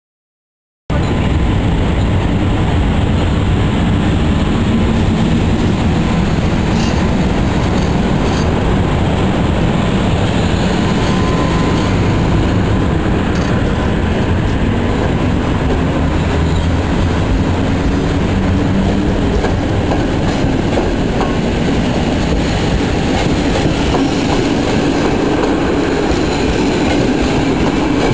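Passenger train cars rolling past along a platform, the loud steady noise of their wheels running on the rails, starting abruptly about a second in.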